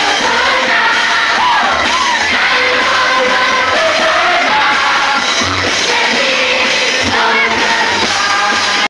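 A large crowd of children and young people singing together loudly with music, many voices at once.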